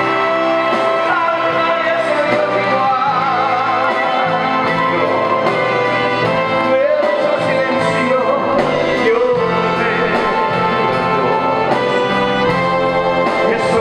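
Music: a song with a singing voice over brass and orchestral backing, with a steady beat.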